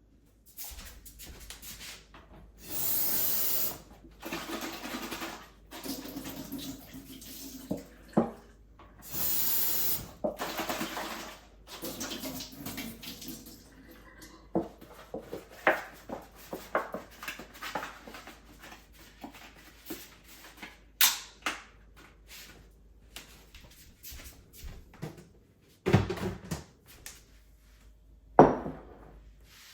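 Kitchen handling sounds: dishes and utensils knocking and clinking, with two rushing spells of about a second and a half each, like water running, early on and about ten seconds in, and a few sharper knocks near the end.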